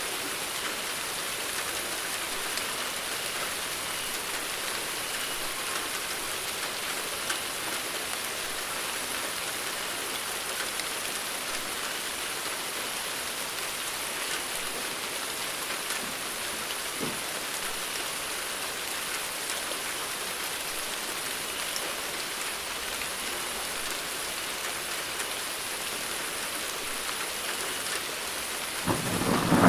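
Steady rainfall: an even hiss with scattered drops pattering. Thunder starts to rumble in the last second, much louder than the rain.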